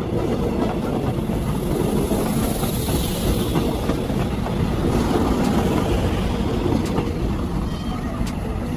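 DOST-MIRDC Hybrid Electric Train rolling past close by: steady running noise of wheels on rails, with a few sharp clicks in the last few seconds.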